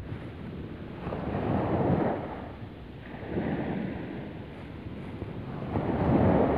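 Sea waves washing up a sandy beach, with wind on the microphone; the noise swells and fades three times.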